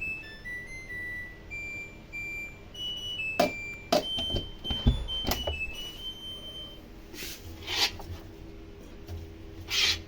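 Washing machine drum knocking several times as something lodged in the tub catches on it, then a few scraping swishes. A simple beeping tune plays over the first half.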